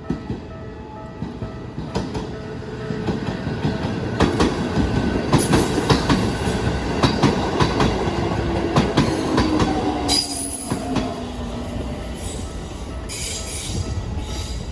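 Keikyu Daishi Line electric train passing over a level crossing: wheels clacking over rail joints, a whine falling in pitch through the middle, and brief high wheel squeals near the end. The crossing bell is still ringing faintly at the start.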